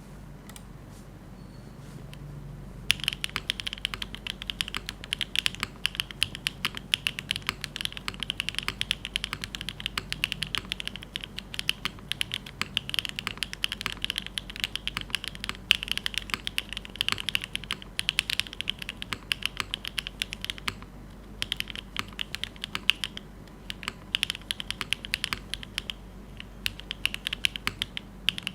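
Typing on a Neo75cu gasket-mount mechanical keyboard with HMX Blue Topaz switches, no foam, a copper bottom and GMK Boba Fett keycaps: a fast, continuous run of key clacks that starts about three seconds in, with a couple of brief pauses.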